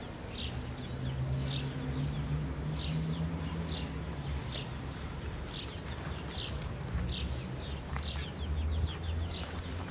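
Small birds chirping: short, high, downward-sliding chirps repeated about once or twice a second, over a steady low rumble.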